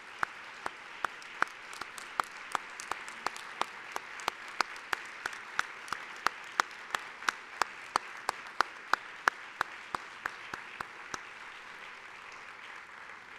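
Audience applause, with one person's claps standing out sharply at about three a second until near the end, when the applause thins out.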